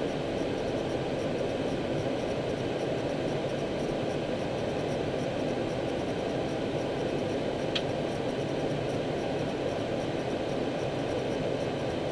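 Steady hiss and rumble inside an Airbus A319 cockpit as it taxis in at low speed, the engines idling under the air-conditioning and equipment fan noise. A single short click sounds about eight seconds in.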